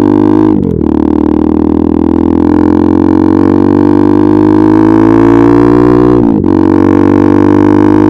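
KTM RC 390's single-cylinder engine through an Akrapovič exhaust, pulling under acceleration with its pitch climbing slowly. Two quick upshifts break it, one about half a second in and one about six seconds in.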